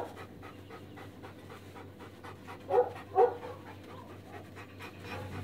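Estrela Mountain Dog panting steadily in the bath, with two short, louder vocal sounds close together about three seconds in.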